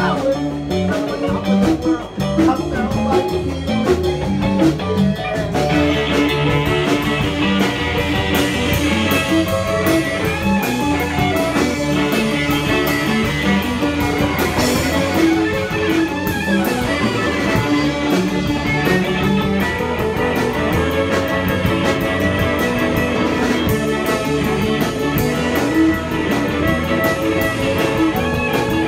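Live punk band playing an instrumental passage with guitar, bass and drum kit. The sound fills out and gets brighter about six seconds in.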